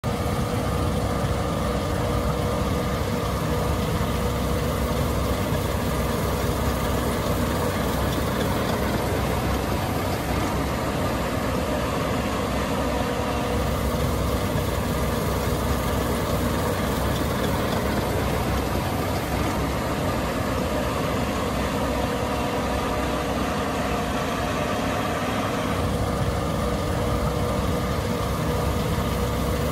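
Case IH 8260 Axial-Flow combine running steadily, a continuous diesel engine and machinery hum with steady tones in it.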